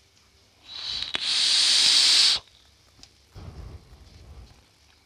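A vape being puffed: a loud, even hiss lasting about a second and a half as air is drawn through the atomizer, then about a second later a softer, lower breathy rush as the vapour cloud is blown out.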